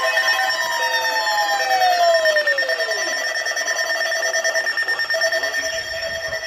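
Electronic alert tones from weather radio receivers: several steady tones sound together, while a tone near the start slides down in pitch over about two and a half seconds and fades out.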